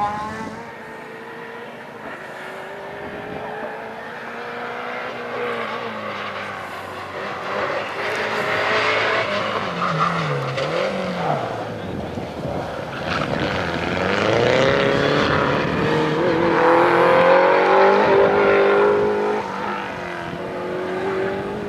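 Rally car engines racing along a tarmac special stage, the engine note rising through the revs and dropping back at gear changes and lifts for corners. It grows louder as a car comes closer, loudest about three quarters of the way through.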